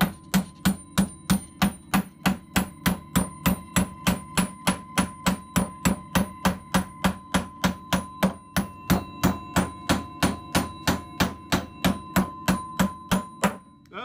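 Hammer striking a half-inch hand-forged steel rivet on an oak door in quick, even blows, about three or four a second, peening it over onto its rove to close it by hand. The blows stop briefly just before the end.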